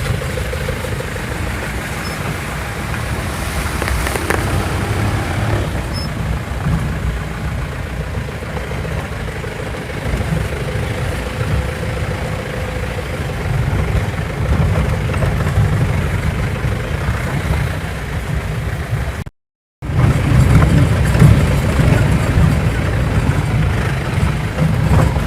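Safari jeep's engine running with a steady low rumble while it drives over a bumpy, rough forest track. The sound cuts out for about half a second near the end, then comes back a little louder.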